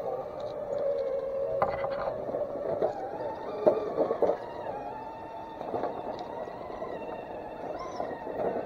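Small electric RC rock crawler's motor and gears whining, the pitch wavering as the throttle changes while it climbs rock ledges, with a few sharp knocks of tyres and chassis against the rock about two and four seconds in.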